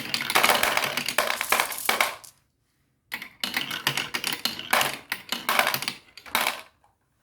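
Marbles rolling and clacking down a marble run, a dense rattle of rapid clicks. It breaks off briefly about two and a half seconds in, then comes back and stops near the end.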